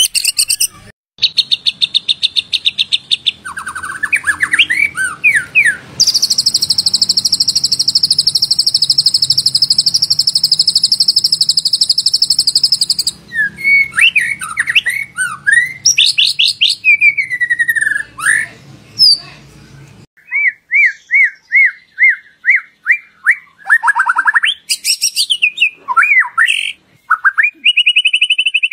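White-rumped shama (murai batu) song, loud and varied: fast trills, a long buzzy rattle lasting about seven seconds, and sweeping whistled phrases. Around twenty seconds in, a faint low hum under the song stops, and a run of short repeated whistles follows.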